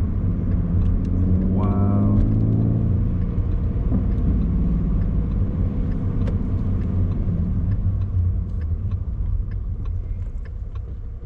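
Inside the cabin of a 2017 Ford Mustang with the 3.7 L V6, driving: a steady low engine and road rumble that eases off over the last few seconds.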